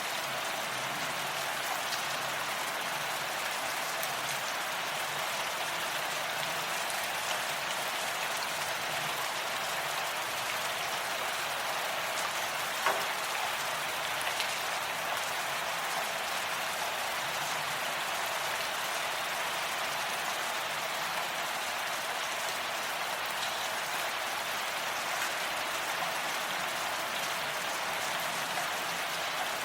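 Steady rain falling, a dense even hiss with scattered individual drop ticks and one sharper drip about thirteen seconds in.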